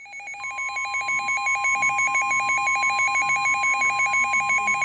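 Midland WR100 weather radio alerting: its alarm warbles rapidly between two pitches and grows louder over the first second or so. Under half a second in, the steady NOAA Weather Radio 1050 Hz warning tone joins it, the signal that a warning is about to be broadcast.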